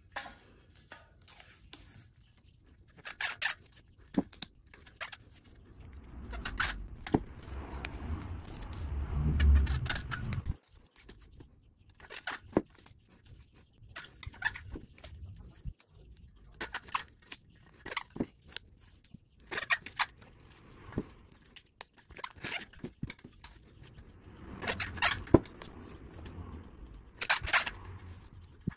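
Nuetech adhesive rim tape being peeled off its roll and pressed by hand onto a spoked motorcycle rim, in irregular crackling tears and rubs. A low rumble from the wheel being handled rises between about six and ten seconds in.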